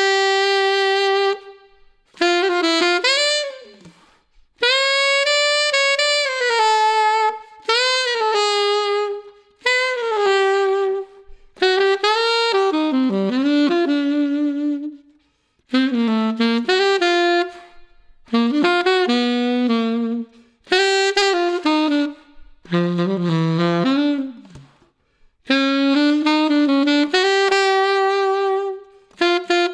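Yanagisawa WO33 alto saxophone fitted with a solid silver KZ neck, played unaccompanied in a string of short melodic phrases with pitch bends and scoops. The phrases are separated by brief pauses.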